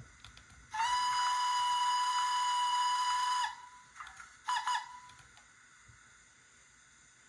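Oxford Rail GER N7 tank engine model's factory-fitted DCC sound decoder playing a steam whistle through its small speaker. One long steady blast begins about a second in and lasts about three seconds, followed by two short toots in quick succession.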